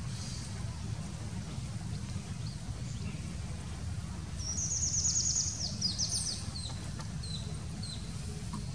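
A small songbird sings a fast, high trill of quickly repeated notes about four and a half seconds in, then a second short trill and a few single chirps, over a steady low rumble.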